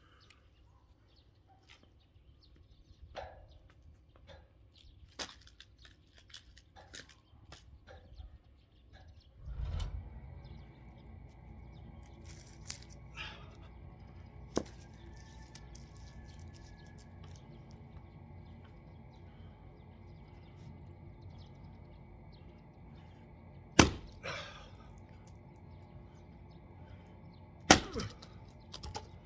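Axe strikes splitting firewood logs: scattered knocks and cracks of wood, with the two loudest, sharpest blows near the end a few seconds apart. A steady low mechanical hum comes in about ten seconds in and runs under the strikes.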